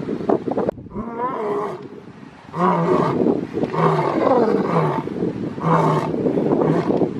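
Male lion roaring: a loud roar at the start, a short lull about two seconds in, then a run of deep repeated roars coming roughly once a second.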